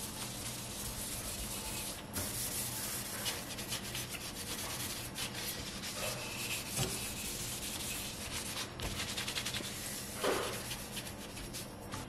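Rubber-gloved hand scrubbing the soapy glass of an oven door, a steady rubbing and scraping of quick back-and-forth strokes.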